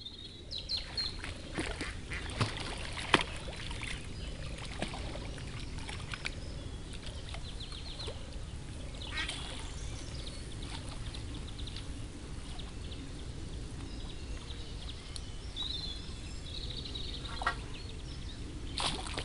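Waterbirds calling, with duck quacks among them, and small birds chirping over a steady outdoor background. Scattered sharp clicks and knocks come through, the loudest about three seconds in.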